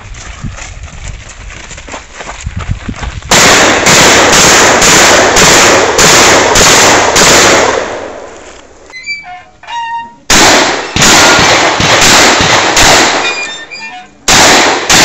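A Remington 12-gauge shotgun fired in rapid strings, about two shots a second. The first run of about nine shots starts some three seconds in, and more shots follow after a pause of about two seconds. The opening seconds hold only quieter rustling and knocks.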